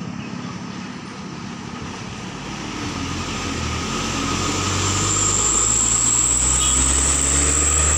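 Diesel engine of a light cargo truck running, growing louder as the truck approaches and passes close by, with a steady high whine over the engine.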